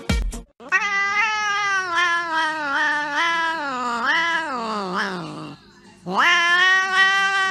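Brown tabby cat yowling: one long, wavering yowl whose pitch bends up and down, a short pause, then a second drawn-out yowl that rises at its start.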